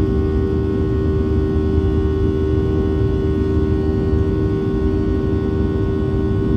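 Steady cabin noise of a jet airliner climbing after takeoff: the engines' low rumble with a steady mid-pitched hum over it, heard from inside the cabin near the wing.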